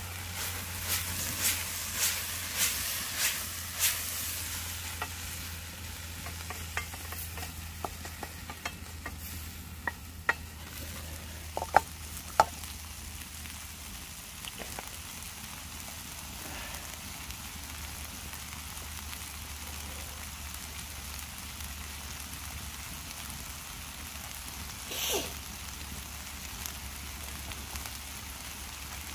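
Food sizzling in a frying pan over a campfire. A run of sharp clicks comes in the first few seconds, two louder clicks about twelve seconds in, and a brief rustle near the end.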